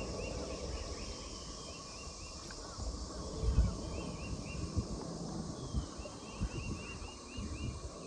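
A bird chirping in quick runs of short repeated notes, over scattered low knocks and bumps, the loudest about three and a half seconds in.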